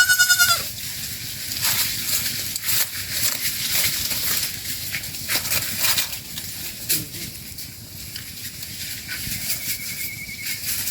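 A goat bleats once at the very start with a quavering pitch, followed by a steady run of rustling and crackling noises, with a thin steady whistle-like tone near the end.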